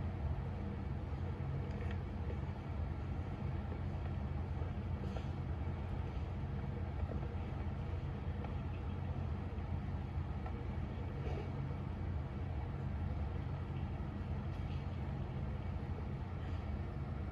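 Steady low mechanical rumble with a constant hum, unchanging throughout, with a few faint clicks.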